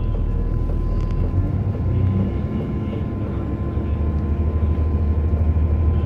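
Cabin running noise of a former FEVE series 2900 metre-gauge train in motion: a steady low rumble of wheels on rail, heavier after about a second and a half, with a thin steady high tone above it.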